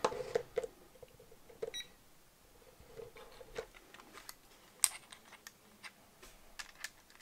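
Handling of a click-type torque wrench and a digital torque tester: scattered small clicks and knocks, the sharpest about five seconds in. A short electronic beep sounds just under two seconds in.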